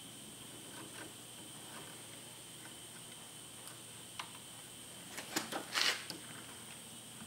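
Small clicks and taps of a plastic Garmin Striker 4 fish finder and its base being handled, with a quick cluster of clicks and a brief rustle about five to six seconds in. A faint steady high whine runs underneath.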